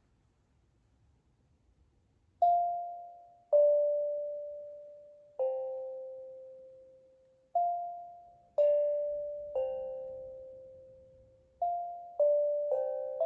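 Steel tongue drum struck by hand: a slow three-note descending figure of ringing bell-like notes, each fading away, played twice and then a third time faster near the end. The first couple of seconds are near silent before the first note.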